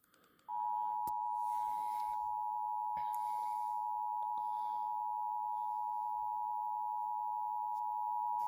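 Emergency Alert System attention signal: a steady two-tone alarm, just under 1 kHz, starting about half a second in and held unbroken for about eight seconds. It marks the start of an incoming emergency alert, here a severe thunderstorm warning.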